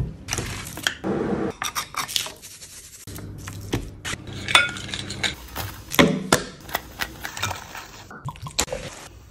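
Kitchen utensils and ingredients against a glass mixing bowl: a quick series of sharp clinks and knocks with short scraping noises in between.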